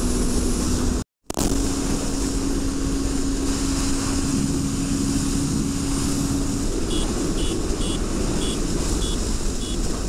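TVS Apache RR 310 single-cylinder motorcycle riding at highway speed, with heavy wind rush over the helmet microphone and a steady engine tone. The sound cuts out for a moment about a second in, and in the last three seconds a run of short high beeps comes about twice a second.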